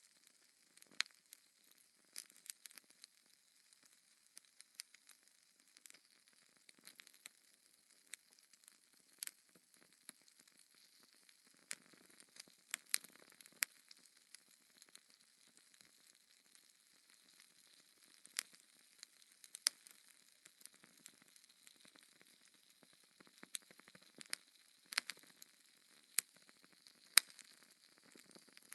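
Wood fire crackling in a fireplace: irregular sharp pops and snaps over a soft, quiet hiss.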